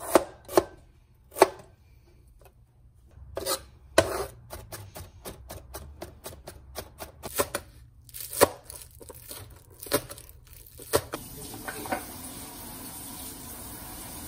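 Kitchen work: a run of sharp, irregular knocks and taps, several a second in places, then a steady hiss over the last few seconds.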